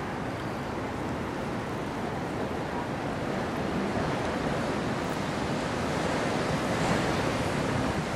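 Steady rushing of wind on the microphone and water washing, with no engine tone standing out; it grows a little louder toward the end.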